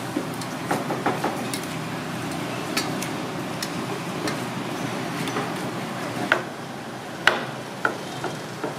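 Sharp clicks and clinks of metal utensils against cookware, scattered throughout and loudest in a few strikes near the end, over a steady background hum of street noise.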